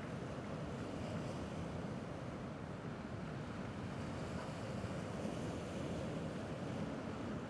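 Gentle sea waves washing steadily, with low wind rumble on the microphone.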